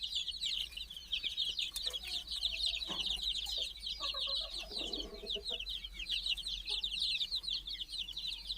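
A brood of young chicks peeping continuously: many overlapping short, high, falling cheeps.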